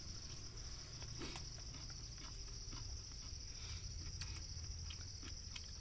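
Crickets chirping steadily at a high pitch, with scattered small clicks and crinkles from fingers picking food off aluminium foil.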